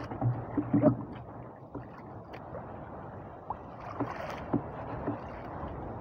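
Sea water lapping and sloshing against a small fishing boat's hull, with wind. There are a few soft knocks in the first second and faint clicks after.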